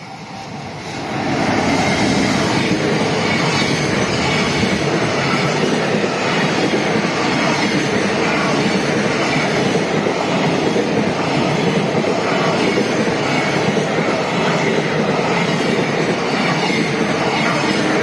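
Freight train passing close by: the electric locomotive arrives about a second in, then a long string of JR Freight container wagons runs past, with a loud, steady noise of wheels on the rails.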